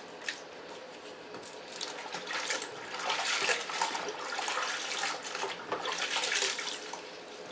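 Water sloshing and splashing in uneven bursts as fabric seat belt webbing is scrubbed by hand in dirty, brown water.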